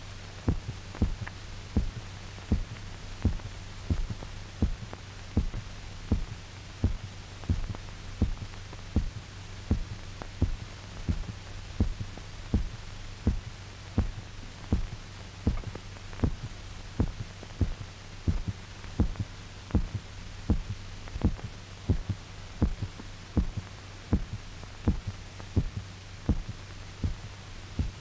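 A dog's heart beating, heard as regular thumps about one and a half a second, while its blood is drained off, over a steady low hum.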